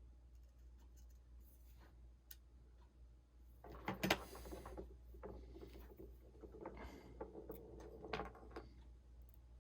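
Faint handling noises of small parts and tools on a work surface: scattered light clicks, with louder bursts of rustling and scraping about four seconds in and again around seven to eight seconds.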